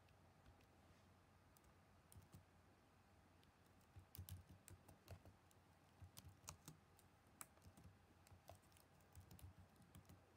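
Faint typing on a computer keyboard: irregular key clicks that begin about two seconds in and come in quick clusters after that.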